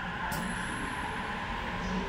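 Sapporo Municipal Subway Toho Line 9000-series rubber-tyred train heard from inside the car while running: a steady rumble with a low motor whine that starts to rise in pitch near the end, as the train picks up speed. A short sharp click about a third of a second in.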